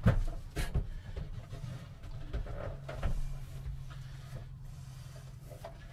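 A metal stove body knocking and scraping against the wooden countertop cutout as it is worked down into place: a few sharp knocks in the first second, another about three seconds in, with scraping between them.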